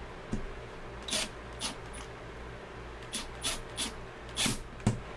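Cordless driver working small screws into an angle grinder's switch housing: a string of about eight short clicks and scrapes, the loudest near the end.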